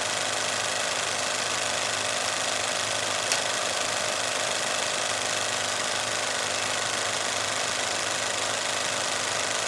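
Cinema film projector running, a steady mechanical whirr with a faint hum, broken by one sharp click a little over three seconds in.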